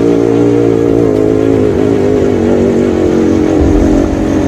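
Vehicle engine running steadily under load up a gravel track, its pitch wavering slightly with the throttle, over a low road and wind rumble.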